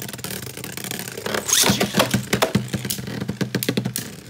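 A spinning Beyblade Burst top hums in a plastic stadium. About a second and a half in, a second top is launched with a short zip, and the two tops then clash in fast clicks and rattles against each other and the stadium.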